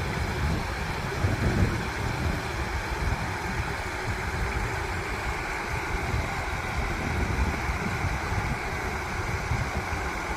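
River water flowing steadily, with wind buffeting the microphone in a low, uneven rumble.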